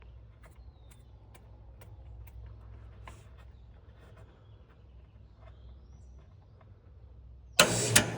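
Air conditioner outdoor unit running with a faint, steady low hum, just back on after its 24-volt control wire was reconnected. Faint scattered chirps and clicks sound over it. Near the end a much louder rushing noise starts suddenly.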